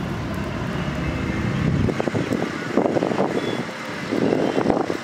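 Wood fire under a large cooking pot being stoked by hand: two bursts of crackling and knocking, about three and four and a half seconds in, over a steady low rumble.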